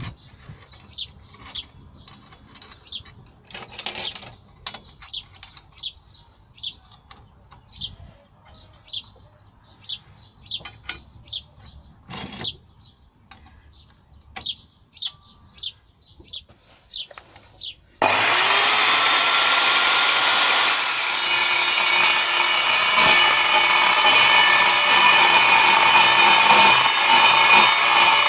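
A small bird chirps repeatedly, about once a second, with a few light metal knocks. About two-thirds of the way through, an Evolution mitre saw starts up with a rising whine and runs loud and steady as it cuts.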